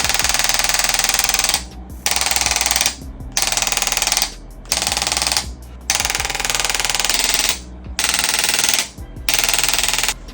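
Handheld electric percussion instrument hammering rapidly against the body, in seven buzzing bursts of about one to one and a half seconds with short pauses between them.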